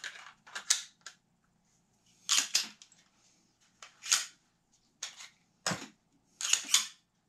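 Stoeger STR-9F 9mm semi-automatic pistol being worked by hand, its slide racked back and let go: a series of about seven sharp metallic clacks and clicks at uneven intervals.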